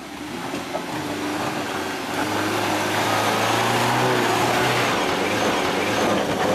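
Suzuki Grand Vitara SUV engine pulling under load as the vehicle crawls up a rocky track, growing louder over the first two seconds and then holding a steady note, with stones crunching under the tyres.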